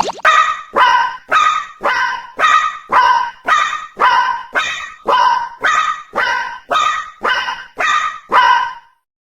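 Japanese railroad crossing warning alarm ringing steadily, a clanging 'kan-kan' at about two and a half strokes a second, each stroke ringing out before the next; it stops shortly before the end.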